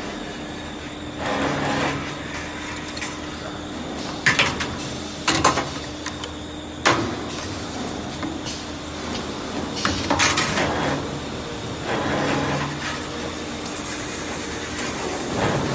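CNC wire bending machine at work: a steady hum with repeated surges of mechanical noise every few seconds and a few sharp metallic clacks.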